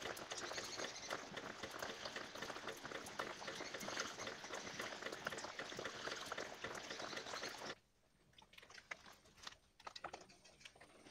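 Rain pattering into shallow water on the floor of a sack-lined pond: a steady hiss full of small drop ticks. It cuts off suddenly about eight seconds in, leaving only faint scattered ticks.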